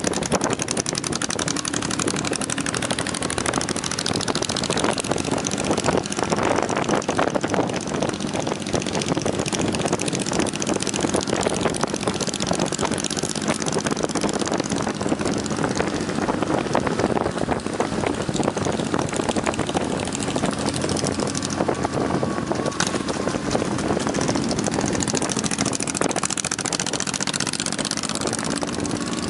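Motorcycle engine running at road speed under a heavy rush of wind noise on the microphone, its pitch rising and falling slightly with the throttle.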